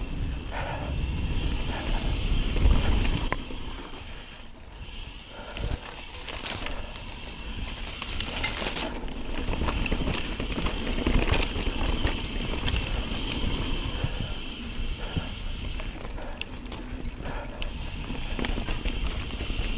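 Mountain bike riding fast down a dirt singletrack: wind buffeting the on-bike camera's microphone, tyres rumbling over the dirt, and frequent knocks and rattles from the bike over bumps. A faint steady high whine runs underneath, and everything eases for a couple of seconds about four seconds in.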